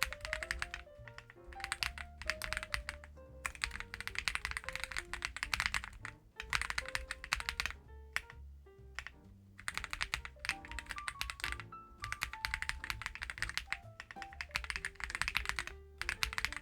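Typing on a Reborn67 mechanical keyboard: fast runs of clacky keystrokes in bursts, broken by brief pauses, over background music.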